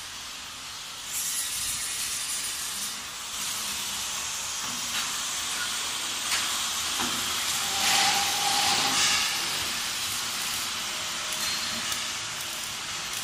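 Steady hissing background noise of a metal-frame factory floor, swelling briefly about eight seconds in.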